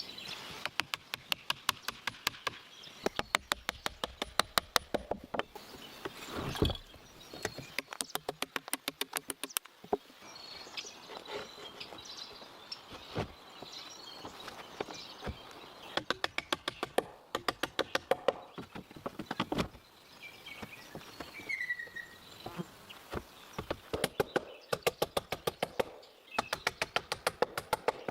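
Rapid runs of sharp taps or knocks, about five a second, coming in bursts of a few seconds with pauses between.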